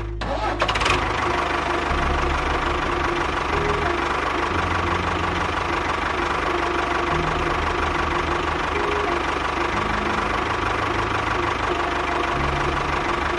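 Small engine running steadily, with a brief clatter about half a second in.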